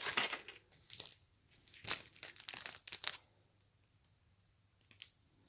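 Plastic snack packets crinkling as they are handled. There are several short rustles over the first three seconds, then it goes quiet apart from one small tick near the end.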